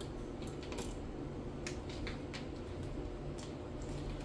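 A run of small plastic clicks and handling knocks as hands work the tonearm and parts of a suitcase-style vinyl record player, over a steady low hum.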